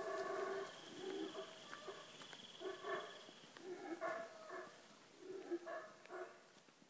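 Guatemalan black howler monkey roaring in a series of low, rough calls, about one a second, growing fainter toward the end.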